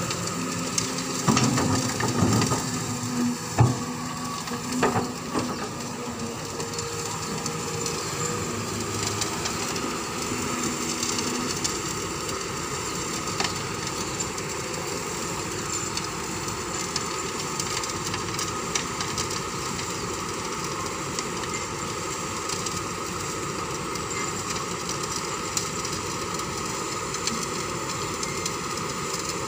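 Kobelco hydraulic excavator running steadily alongside a sand-screening machine, a constant mechanical drone with a rattling edge. Several knocks and clatters in the first six seconds, as the bucket works over the screen's hopper.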